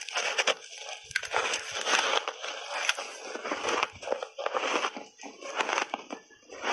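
Close-miked biting and crunching of refrozen ice chunks coated in matcha tea and milk powder: a big bite, then irregular crisp crunches as the ice is chewed, easing briefly near the end.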